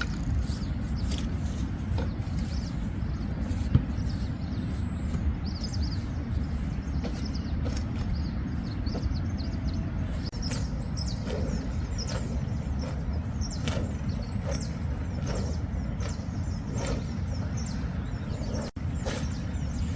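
Steady low rumble of heavy rain and wind on the tent, with scattered sharp patters and clicks of drops and a few short bird chirps.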